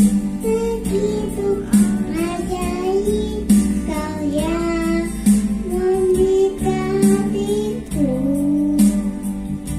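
A young girl singing a Christian song over guitar accompaniment.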